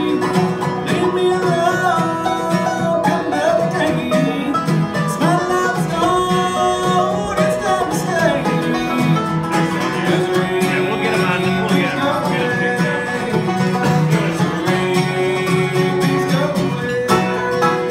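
Live bluegrass band playing: banjo, mandolin, dobro and acoustic guitar, with a man singing lead.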